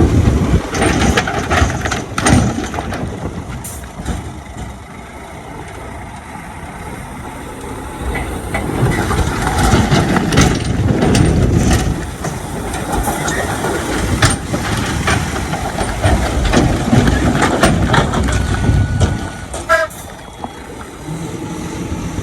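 Heavy diesel earthmoving machinery working: engines running under changing load, with repeated sharp metal clanks and knocks. It eases off for a few seconds near the start and works hard again through the middle.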